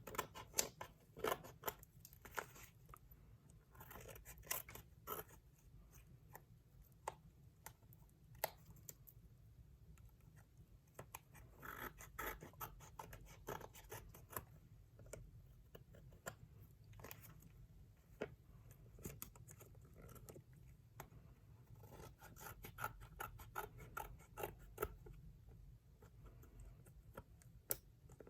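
Crayola scissors cutting away excess collage paper from magazines and brochures around the edge of a pocket sketchbook cover: quiet, irregular snips in short clusters with pauses between them.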